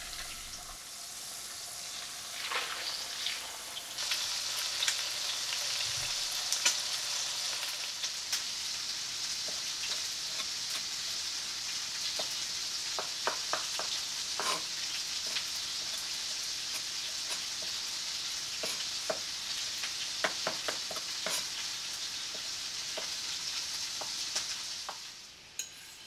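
Boneless skinless chicken legs searing in fat in a cast-iron skillet: a steady sizzle that grows louder about four seconds in and dies away near the end, with scattered light clicks.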